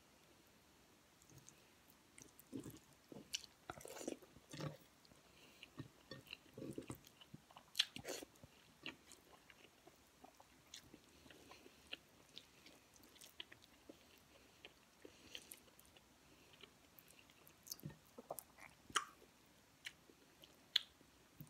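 Quiet chewing while eating beef kare-kare and rice by hand, with irregular small clicks and soft mouth sounds.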